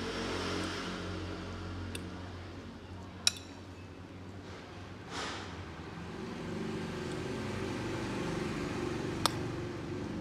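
Metal fork stirring instant noodles in a glass bowl, clinking sharply against the glass three times, the second clink the loudest, with a soft swish of the noodles about halfway. A steady low hum runs underneath.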